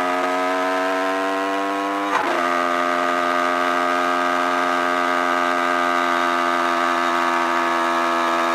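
Dirt bike engine running under way, its pitch climbing slowly as it accelerates. About two seconds in the pitch breaks and drops, as at an upshift, then it runs on at a nearly steady pitch.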